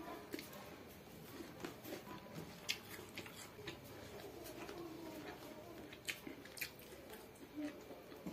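Close-up eating sounds of a person chewing rice and pork ribs eaten by hand: wet chewing with scattered sharp lip smacks and clicks.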